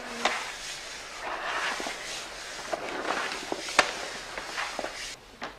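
A large sheet of paper being rolled and smoothed by hand against a glass panel: rustling and crinkling that swells and fades, with several sharp crackles, the loudest a little after halfway.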